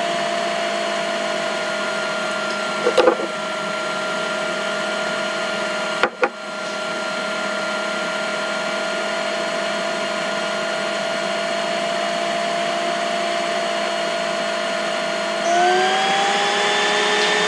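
Steady whine of a small electric motor, several steady tones over a hiss. There is a click and a brief drop in level about six seconds in, and the pitch rises slightly near the end.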